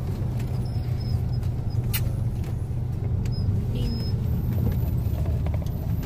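Steady low rumble of a car's engine and tyres heard from inside the cabin, with one sharp click about two seconds in.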